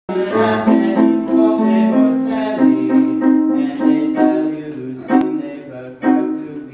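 Background music: a slow melody of held notes that step from pitch to pitch, with a brief click about five seconds in.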